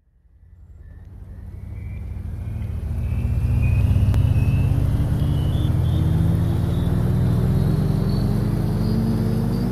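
A deep rumbling drone fades in from silence over the first three seconds or so, with several tones above it rising slowly and steadily in pitch: an intro riser sound effect.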